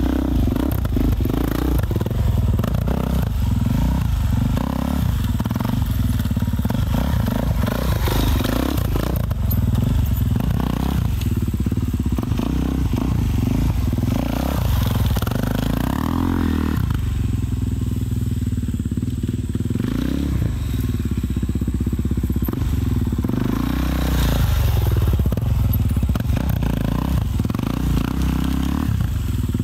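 Suzuki DR-Z400 supermoto's single-cylinder four-stroke engine revving up and down as the bike is ridden and slid around, through an exhaust with its baffle and spark arrester removed.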